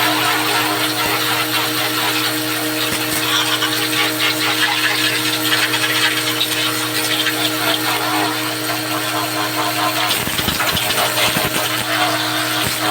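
A motor-driven machine running steadily with a constant hum and a whirring hiss, with some low rumbling knocks about ten seconds in.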